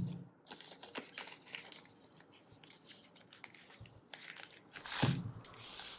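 Plastic wrap rustling and crinkling as a wooden palm rest is unwrapped by hand, with small ticks and taps of handling. There is a louder rustle near the end.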